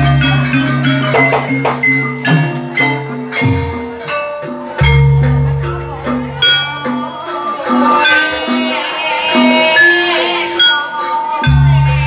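Javanese jaranan gamelan music, played loud: metallophones ring out a melody of struck notes over a drum beat, with a deep held bass tone that swells in and drops out at several points.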